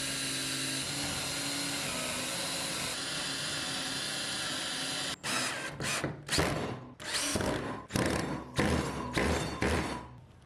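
Power drill running steadily for about five seconds, then in a string of short bursts, driving screws to mount steel hooks onto a wooden board.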